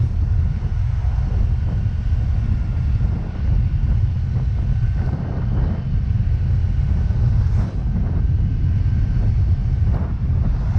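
Wind buffeting the microphone of a moving Yamaha Mio Gravis scooter, a loud steady rumble, with a faint high whine underneath that slowly drops in pitch.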